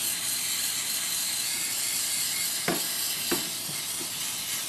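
Aerosol can of adhesive remover spraying in one long, steady hiss, wetting down the glued-on paper pattern. There are two light clicks in the middle.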